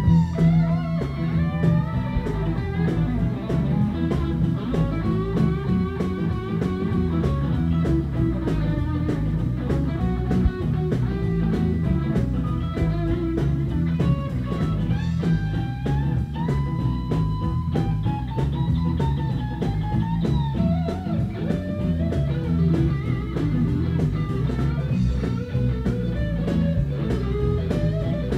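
Live rock and roll band playing an instrumental stretch: electric guitar lead lines with string bends over drums, bass and rhythm guitar.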